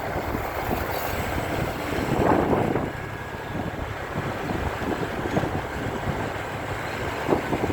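Car driving: steady engine and road noise with wind on the microphone, swelling briefly about two seconds in.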